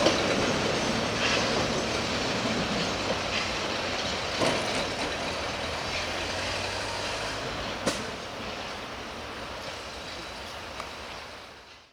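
Two-foot-gauge train running, with a rumble and now and then a sharp click from the wheels. The sound slowly dies away and fades out completely just before the end.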